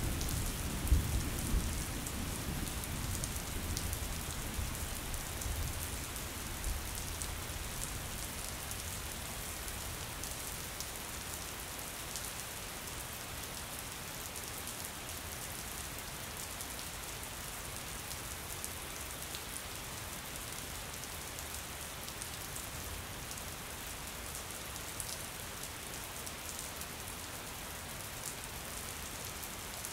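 Steady rain pattering on a window, with a roll of thunder rumbling low in the first few seconds, peaking about a second in and then dying away.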